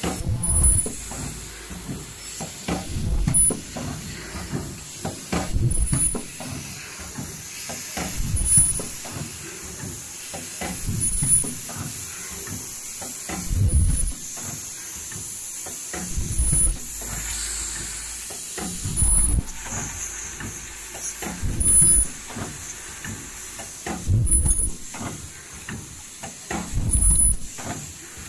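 Automatic folding face-mask production line running: low thumps from its stations repeat in a steady cycle about every two and a half to three seconds, with pneumatic hissing and short high ticks in between.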